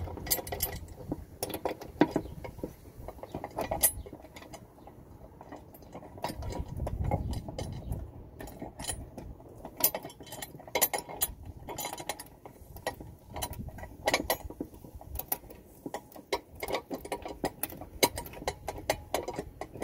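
Irregular small metallic clicks and clinks as an 8mm bolt with lock washer and flat washer is fitted by hand through a metal running-board mounting bracket into a clip-on nut on the pinch weld and turned finger tight.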